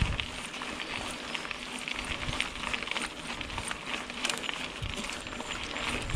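Mountain bike riding along a dirt singletrack: steady tyre noise on the trail, with many small clicks and rattles from the bike and the ground.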